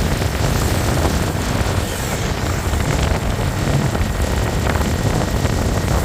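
Road traffic noise: a steady low engine rumble under an even hiss, with no horn sounding.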